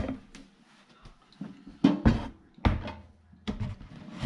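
A series of separate knocks and clunks, some sharp and some heavier, as a new double-basin sink is handled and set down into its cutout in the countertop.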